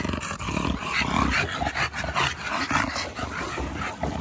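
Bully-breed dogs close by, making a run of short, irregular noises: throaty low sounds mixed with knocks and scuffles.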